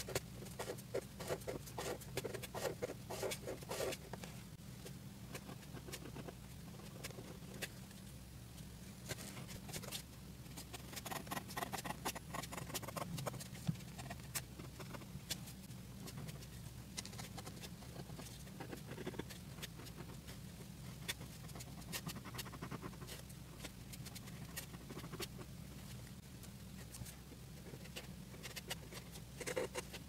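Pen nib on paper: quick short scratching strokes and light taps as lines are hatched in, coming in busier spells, over a steady low hum.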